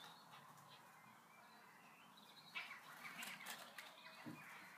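Near silence: faint outdoor garden ambience with distant bird chirps, and a few soft clicks and rustles a little past halfway through.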